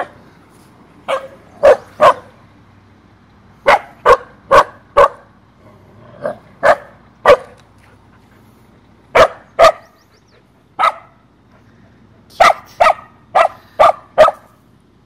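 Samoyed giving short, sharp alarm barks in quick clusters of two to five, about eighteen in all, at something unfamiliar moving across the street.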